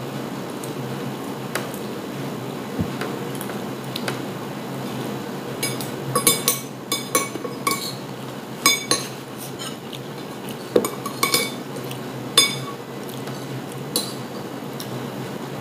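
Metal spoon and fork clinking and scraping against a ceramic plate, with a run of sharp ringing clinks starting about a third of the way in, over steady low room noise.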